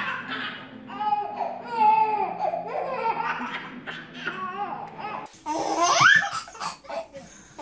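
A baby laughing and squealing in high-pitched bursts, with a high rising squeal about six seconds in.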